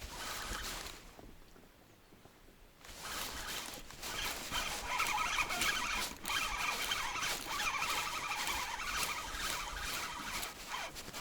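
Spinning reel being cranked, a steady ratcheting whir of the retrieve starting about three seconds in and running on.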